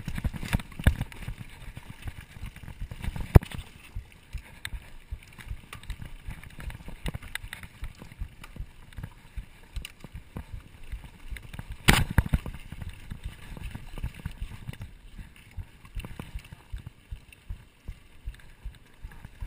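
Mountain bike riding over a dirt trail: irregular rattles and knocks from the bumps over a steady low rumble, with two harder knocks about three and twelve seconds in.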